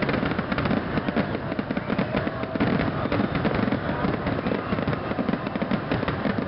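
Dense barrage of aerial fireworks: many shells bursting and crackling in rapid succession without a break.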